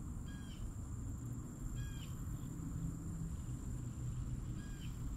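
Outdoor pond-side ambience: a steady high insect trill, with a bird giving a short call three times, near the start, about a second and a half later, and near the end, over a low rumble.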